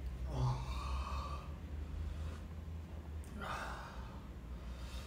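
A man breathing out hard twice, sigh-like, his mouth and throat burning from extremely spicy instant noodles.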